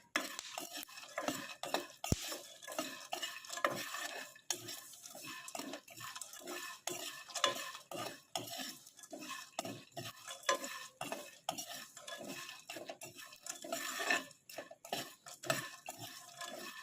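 Split kabok nuts being stirred as they dry-roast in a pan, the utensil scraping the pan and the nuts clattering in quick, irregular strokes a few times a second.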